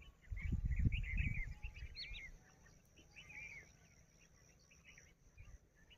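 Small birds chirping in repeated short call notes throughout. A low rumble on the microphone during the first two seconds is louder than the birds.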